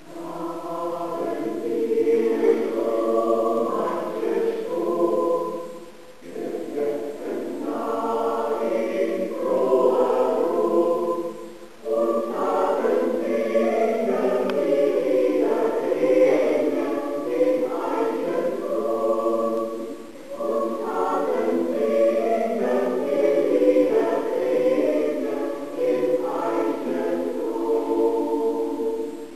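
Choir singing, in phrases broken by short pauses about 6, 12 and 20 seconds in.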